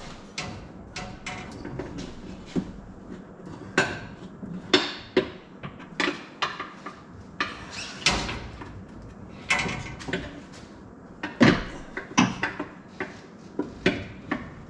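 Metal hand tools clanking and clicking at irregular intervals during car suspension and exhaust work, with a few sharper ringing knocks, the loudest about three-quarters of the way through.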